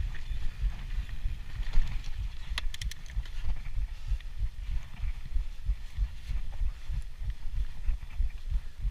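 Mountain bike riding fast over a dirt forest trail, heard from a bike-mounted camera: a steady rumble of tyres and buffeting on the microphone, with a short cluster of sharp clicks and rattles about two and a half seconds in.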